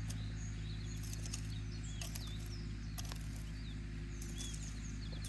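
Steel hoe chopping and scraping into loose soil in a few short knocks, with small birds chirping now and then over a steady low hum.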